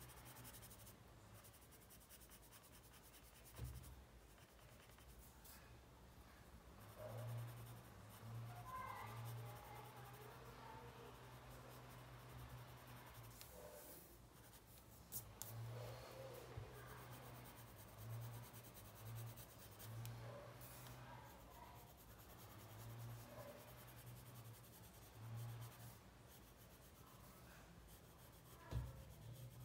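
Faint scratching of a pencil on paper as it shades in short strokes, with a few soft knocks, the loudest near the end.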